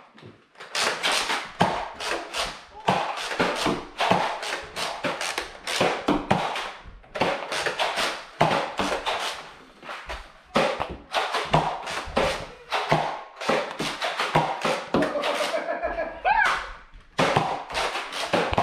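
A rapid, irregular run of sharp clacks and thuds from a Nerf battle, with a shouted voice briefly near the end.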